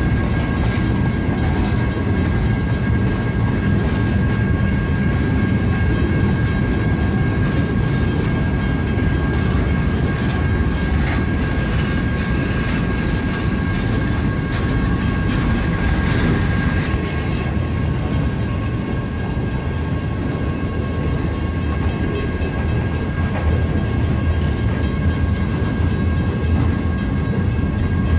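Flatcars of a loaded military freight train rolling past: a steady rumble of steel wheels on rail, with a faint steady high-pitched tone over it.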